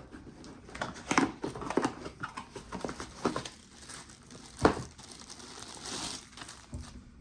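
Plastic packaging crinkling and tearing as a spinning reel is unwrapped by hand, in irregular rustles with a sharper crackle a little over halfway through.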